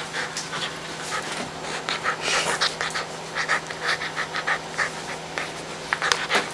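Husky puppy panting in quick, even breaths with a tennis ball held in its mouth.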